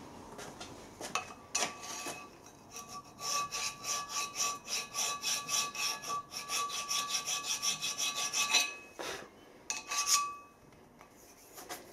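Hand file scraping back and forth in the keyway slot of a steam-engine flywheel's hub, metal on metal. After a few odd strokes it settles into a fast, even run of strokes for about six seconds with a metallic ring under them, stops, then gives a short final burst near the end.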